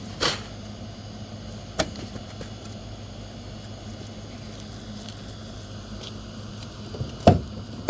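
Steady low hum of a vehicle's running engine, broken by three sharp knocks: one just after the start, one about two seconds in, and the loudest near the end.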